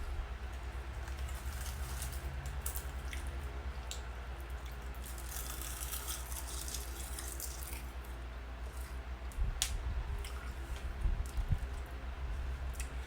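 Close-miked chewing of crisp roasted seaweed: scattered sharp crunches with wet mouth sounds between them, over a steady low hum.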